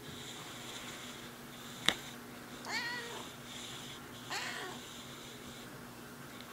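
A white cat meowing twice, two short wavering meows about a second and a half apart, with a single sharp click just before the first meow.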